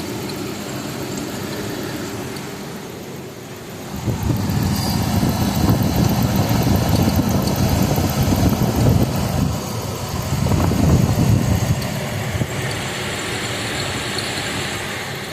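2000 Ford Ranger's 3.0 V6 engine running, louder and rougher for several seconds from about four seconds in, with a short dip near ten seconds. The owner hears a little alternator noise in it, a squeak he puts down to the alternator's internal fan.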